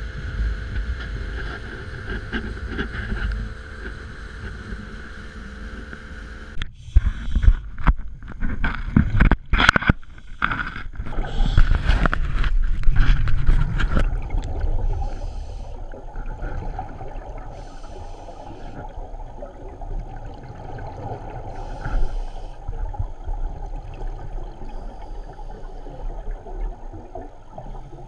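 A small motorboat runs steadily under way. About seven seconds in, loud irregular knocking and rushing noise takes over for several seconds. From about fourteen seconds the sound turns to a muffled underwater rumble, broken every second or two by short hissy bursts of scuba divers' exhaust bubbles.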